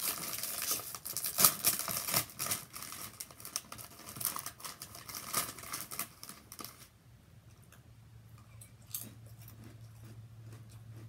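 A chip bag crinkling as it is opened and handled, a dense run of crackles that stops about seven seconds in. After that there are only a few faint clicks over a low hum.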